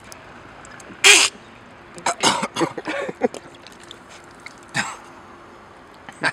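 Coughing from a man who has just taken a swig of cola mixed with liquor. There is one hard cough about a second in, a run of shorter coughs a second later, and another sharp cough near the end.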